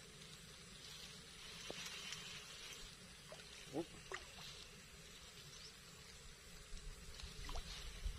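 Faint waterside ambience: a steady high hiss with two short chirps close together about four seconds in.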